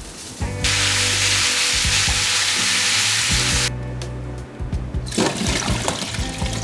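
A loud, even rush of liquid noise lasting about three seconds, then scattered light clatter, over soft background music.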